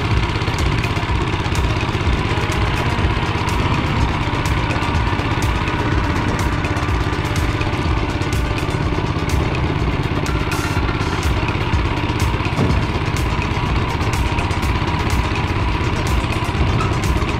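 Motor Sich walk-behind tractor's small single-cylinder petrol engine running steadily under way, with frequent rattling and clicking as the machine rides over the rough track.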